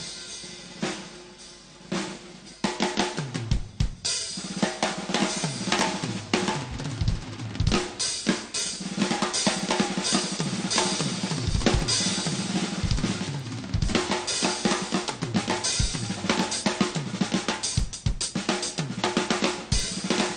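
Drum solo on a jazz drum kit: snare, bass drum, hi-hat and cymbals. It starts softly, then from about two and a half seconds in becomes a busy run of loud hits with bass-drum thumps.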